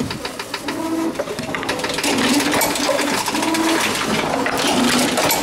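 Tomra Tx2 reverse vending machine working: its motor hums in short spells that shift slightly in pitch, over rapid clicking and clattering of containers moving through it.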